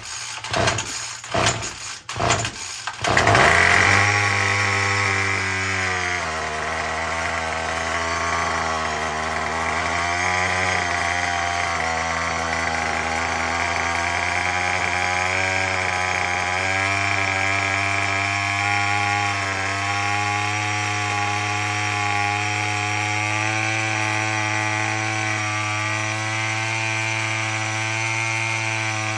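Murray M2510 two-stroke string trimmer engine being pull-started: it sputters a few times, catches about three seconds in, then runs on steadily, its speed wavering at first. It is running again after a no-start that a new primer bulb has cured.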